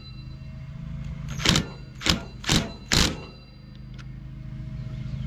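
Impact wrench run in four short bursts, about half a second apart, tightening a chainsaw's clutch back onto the crankshaft, over a steady low hum.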